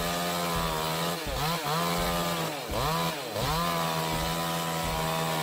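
Chainsaw engine running at high revs, its pitch dipping and recovering four times in the first half, then holding steady.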